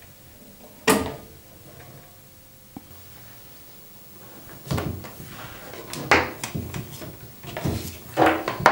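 A speaker cable's plug pulled from the Califone 1815K record player's speaker jack, with one sharp click about a second in. From about five seconds in, a run of knocks and rustling as the cable is handled and coiled into the wooden speaker cabinet's storage compartment.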